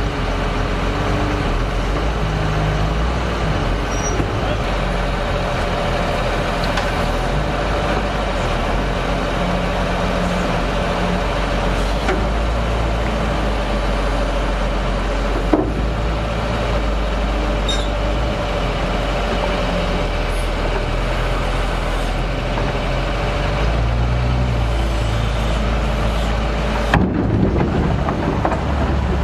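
Diesel engines of a JCB wheel loader and farm tractors running steadily while the loader works, with a short knock about halfway through. Near the end the engine sound changes abruptly.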